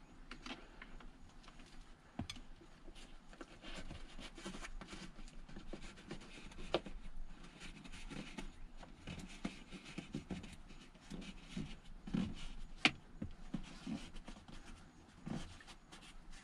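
Handling noise from a dash cam cable being tucked under a vehicle's headliner trim: the loose coil rustling, with scattered light clicks and taps against the plastic trim. A sharper click comes about 13 seconds in.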